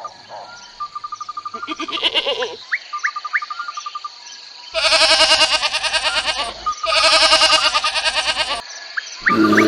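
Goat bleating: a short wavering bleat, then two long loud trembling bleats, and another starting near the end, over a steady background of chirping insects.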